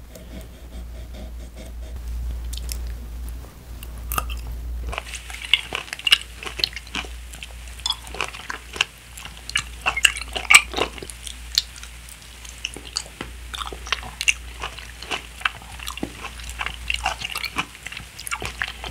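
A person chewing grilled pineapple, with many small crunching clicks. The chewing starts about five seconds in, after a quieter stretch of knife-and-fork cutting on the plate.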